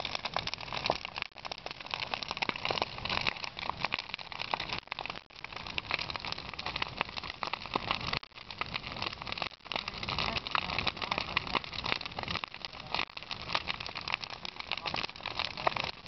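A large wood bonfire burning hard: a steady rush of flame with dense crackling and popping.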